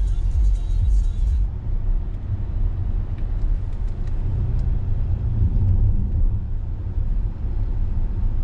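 Audi Q7 being driven, heard from inside the cabin: a steady low road-and-engine rumble.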